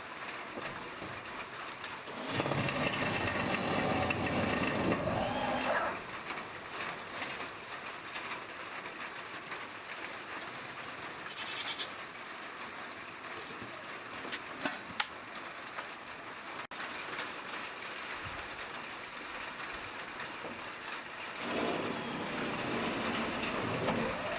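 Goats bleating: one long bleat about two seconds in and another near the end, over a faint steady background hiss.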